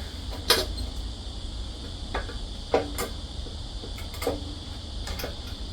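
A few sharp clicks and knocks from metal parts being handled at the scooter's opened CVT drive. The loudest comes about half a second in and the rest are spread through. Under them runs a steady high-pitched background hum.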